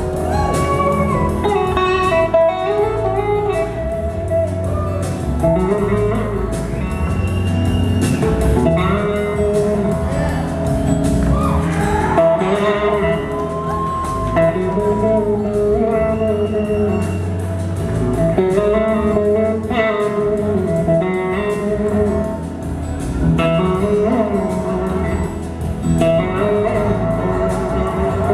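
Live blues-rock band playing a slow song, led by an electric guitar solo on a Gibson SG whose notes bend and glide in pitch, over bass and drums.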